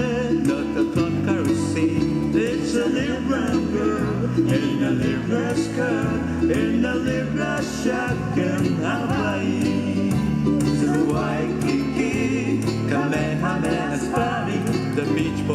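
Music: a song with a singing voice over plucked-string accompaniment and a steady bass line.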